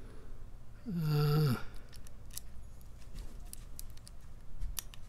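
Metal lock pick working the pins inside a pin-tumbler padlock, making scattered faint little clicks and ticks as he feels for the pins. A brief low hum from the picker about a second in.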